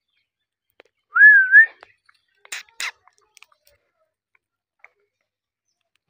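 Indian ringneck parrot giving one clear whistle that rises and then wavers in pitch, followed about a second later by two sharp crunches as it bites into a cob of corn.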